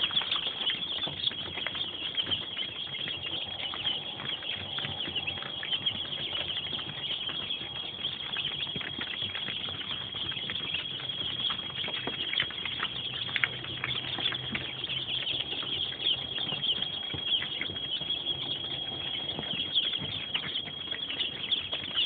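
A large brood of ayam kampung (village chicken) chicks peeping together: a dense, unbroken chorus of many high, short cheeps overlapping.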